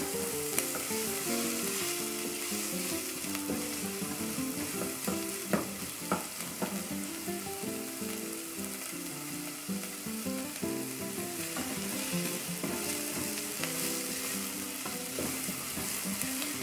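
Chopped onion and garlic sizzling in olive oil in an aluminium pot, a steady hiss as the onion softens. A wooden spoon stirs now and then, with a few sharp scrapes or taps against the pot, the clearest about half a second in and around five to six seconds in.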